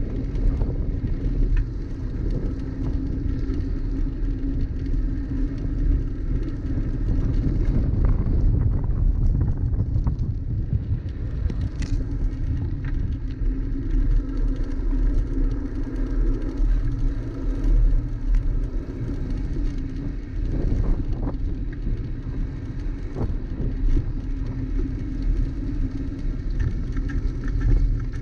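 Wind rumbling on a bicycle-mounted GoPro's microphone, mixed with the steady road noise of the bike rolling along city streets, with a few light knocks from bumps along the way.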